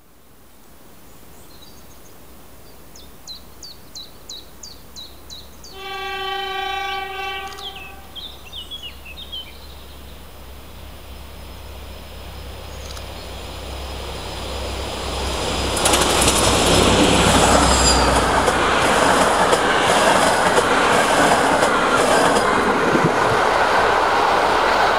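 SU46 diesel locomotive hauling a passenger train, approaching with a low engine rumble. About six seconds in it sounds its horn: one held note lasting about two seconds. The noise builds, and from about sixteen seconds in the locomotive and its coaches pass close by with loud wheel-on-rail noise.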